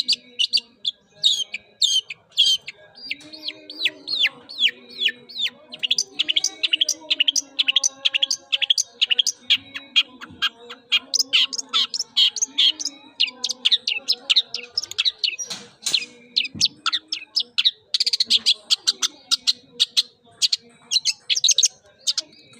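Long-tailed shrike (pentet) singing a fast, unbroken run of short, sharp chirps and twittering notes, several a second.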